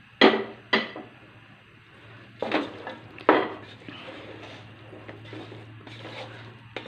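A utensil clinking and knocking against a cooking pot as pieces of fried chicken are put into the masala: two sharp clinks in the first second, two more around three seconds in, then lighter scraping and clatter. A faint steady low hum runs underneath.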